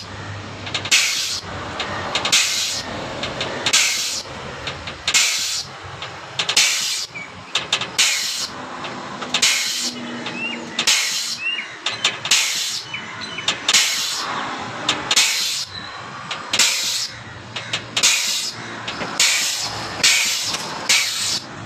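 Air-operated hydraulic bottle jack's pneumatic pump hissing in sharp bursts of compressed air, about one every second to second and a half, as it pumps the ram up under a truck axle.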